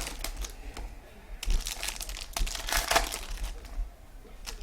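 Trading card packs and cards being handled: irregular crinkling of plastic and foil wrappers in uneven bursts, busiest in the middle stretch.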